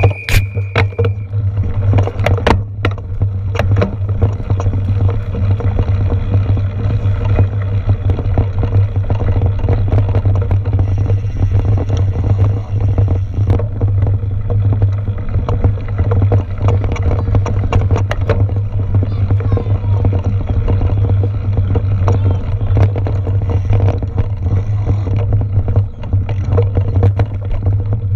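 Mountain bike ride noise on an on-board action camera: a heavy, steady rumble of wind and vibration with frequent rattles and knocks as the bike runs over bumpy grass and dirt trail.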